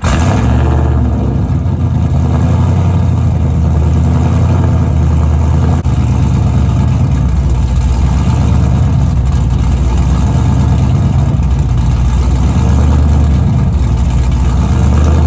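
Ram 1500's 5.7-litre Hemi V8 running at idle, heard at the exhaust from behind the truck: loud and steady, with most of its sound deep and low-pitched.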